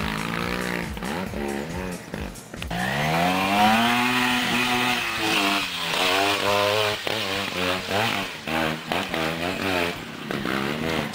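TRS trials motorcycle engine revving hard as the bike climbs a steep dirt hill. Its pitch rises and falls in quick surges, with one longer, higher pull about three seconds in.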